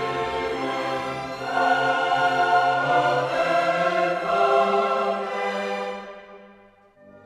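Background music, orchestral with choir-like voices, that swells about a second and a half in and fades out near the end.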